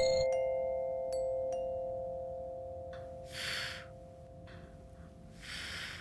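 Background music of glockenspiel- or marimba-like mallet notes, struck right at the start and ringing out, fading over about three seconds. Two soft swishes follow, one about three and a half seconds in and one near the end.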